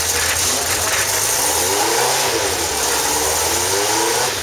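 Ariel Atom V8's engine idling, blipped up in pitch and back down around the middle, then settling back to idle.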